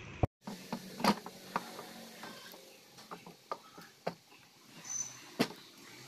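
Scattered clicks, knocks and light metallic clinks of tools and metal parts being handled while a washing machine clutch is fitted, with a brief high ring about five seconds in.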